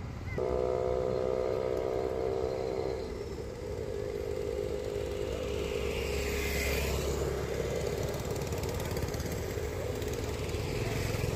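Motorbike traffic on the road: a steady engine hum, with a vehicle passing by about six seconds in.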